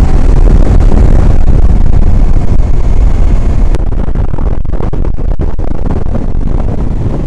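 Motorcycle riding at road speed: the engine running under loud, steady wind rush on the microphone, with gusty buffeting in the middle seconds.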